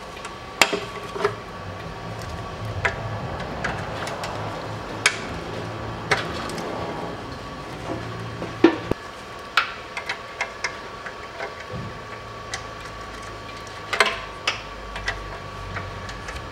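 Irregular metallic clicks and taps of a hand tool on the bolts of an Aisin 09D automatic transmission's oil pan as they are loosened.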